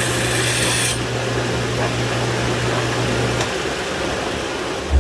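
A workshop power tool runs with a steady hum and a rasping, grinding noise. The hum cuts off about three and a half seconds in, and a single thump comes near the end.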